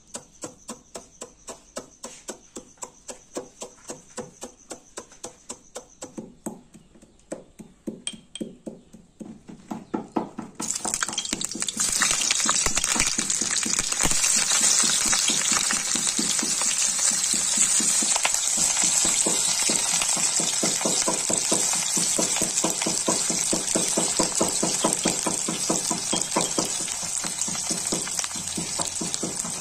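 Pestle pounding in a mortar, about two to three regular strokes a second. About ten seconds in, sliced onions drop into hot oil in an iron kadai and a loud, steady frying sizzle takes over.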